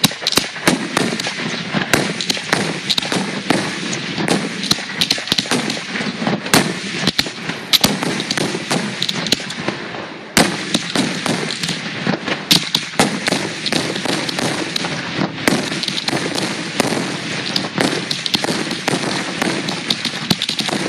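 Fireworks finale barrage: aerial shells launching and bursting in rapid succession, a near-continuous crackle packed with sharp bangs. There is a brief lull about halfway through, broken by a sharp bang, and then the barrage carries on.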